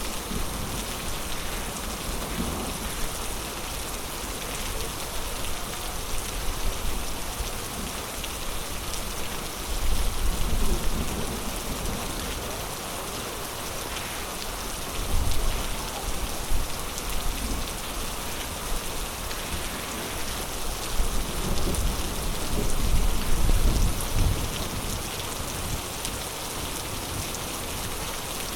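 Heavy rain pouring steadily in a thunderstorm, with low rumbles swelling up several times.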